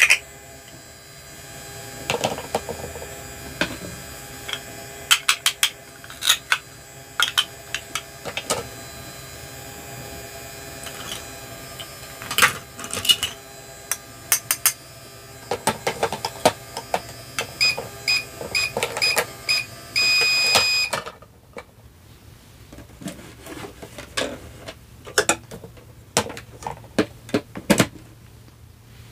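Hard plastic toy food pieces and toy kitchen parts clicking, tapping and knocking as they are handled. Near the middle, a toy appliance gives five short electronic beeps and then one longer beep, after which a faint steady hum stops.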